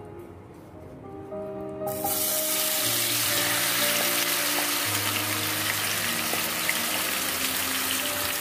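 Marinated okra dropped into hot oil in a kadhai: loud frying sizzle starts abruptly about two seconds in and keeps on as the okra is stirred with a wooden spatula. Background music plays throughout.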